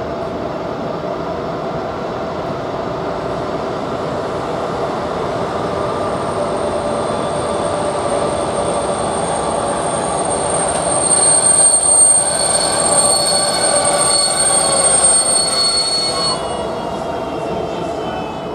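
An electric-locomotive-hauled passenger train pulling into the station and slowing, its wheels rumbling. A high, steady squeal from the wheels and brakes sets in about six seconds in, grows loudest in the middle, and cuts off a couple of seconds before the end.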